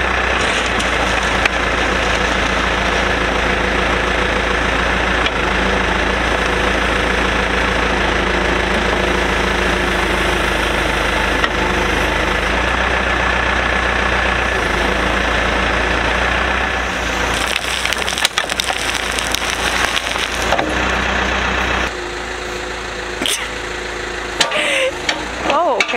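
Diesel engine of a Case backhoe loader running steadily while the backhoe digs a trench in dirt and gravel. The sound drops in level about four seconds before the end.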